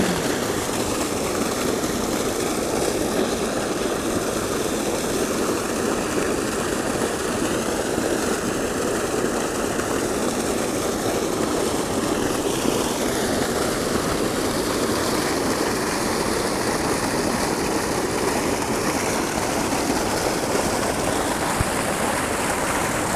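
Steady rush of water gushing from a spillway outfall pipe into a small creek running high with floodwater.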